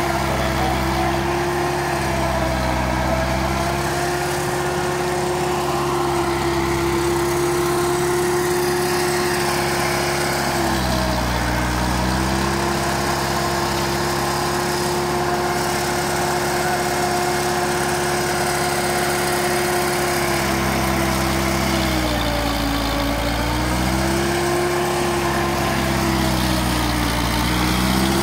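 Diesel engine of a Romanian-made tractor running steadily while driving a corn forage chopper. The engine note sags briefly under load a few times, about eleven seconds in, around twenty-two seconds and near the end, as stalks go into the chopper, then picks back up.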